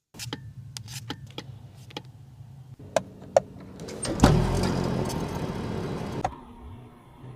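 Mercedes-Benz S350L: a run of sharp clicks from door and cabin mechanisms. About four seconds in the engine starts with a loud surge and deep rumble, then settles after about two seconds to a quieter, steady idle.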